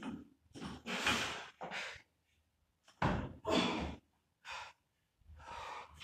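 A man's hard, gasping breaths from exertion while lifting a heavy barbell overhead: about seven short forceful puffs, several in quick pairs.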